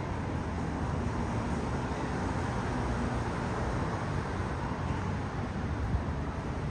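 Steady low rumble and hiss of an elevated New York City subway line, with no distinct clanks or events.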